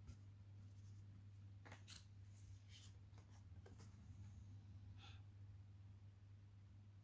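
Near silence over a low steady hum, with a few faint rustles and taps of stiff printed art cards being shuffled and swapped by hand, clustered between about two and five seconds in.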